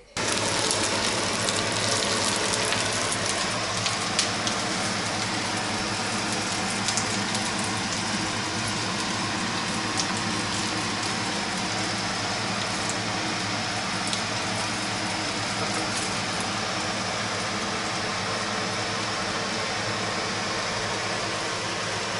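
Batter-coated cauliflower frying in oil in a pan: a steady sizzle with scattered small crackles. Under it runs a steady fan-like hum, likely the range hood.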